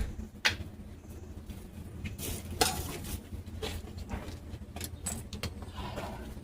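Handling noise: sharp clicks, knocks and light rattles of objects being moved about, over a low steady rumble.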